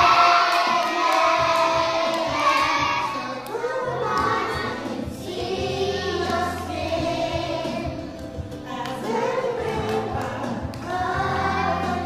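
A group of young children singing a Christian song together.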